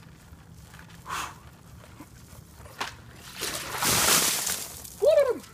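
A bucket of ice water dumped over a person, pouring and splashing down for about a second and a half. A short falling cry at the cold follows right after.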